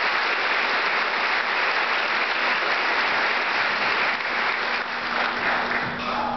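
Audience applauding, a dense steady clapping that begins to thin out near the end. A low steady hum starts under it about five and a half seconds in.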